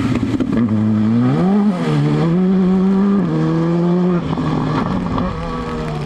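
Rally car engine accelerating hard through the gears. The pitch climbs, then drops sharply at each upshift, several times in a row.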